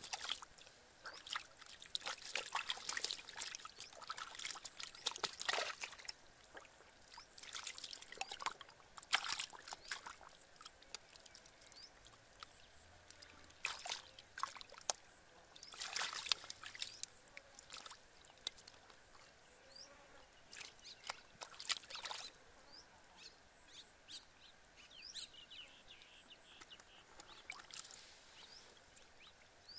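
Hands splashing and sloshing in a shallow muddy puddle while fish are caught by hand. It comes in irregular bunches of splashes with quieter gaps, and dies down in the last few seconds.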